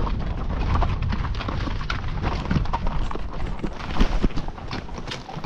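Horse's hooves clopping at a walk in a quick, irregular run of knocks, over a steady low rumble.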